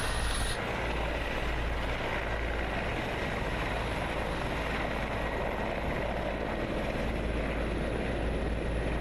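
Mil Mi-24 Hind attack helicopter flying low, its rotor and twin turboshaft engines making a steady noisy sound with a heavy low rumble.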